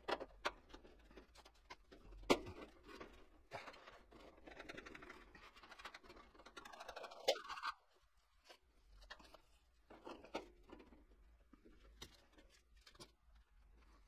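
Hands working a knock-out plate free of a heater's sheet-metal back panel: scattered sharp metallic clicks and taps, the loudest about two seconds in, and a stretch of scraping that stops abruptly a little past halfway. After that, fainter clicks and handling.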